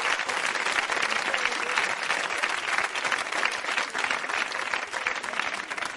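Studio audience applauding, a dense steady clapping that eases off slightly near the end.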